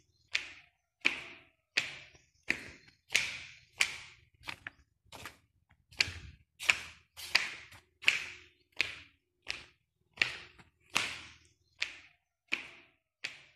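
Footsteps at a steady walking pace, about three steps every two seconds, each footfall a sharp, short tap.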